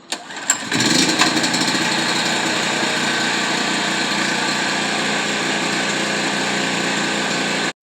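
Predator 4000-watt generator's small single-cylinder engine catching after a few clicks and then running steadily at a constant speed. The sound cuts off suddenly near the end.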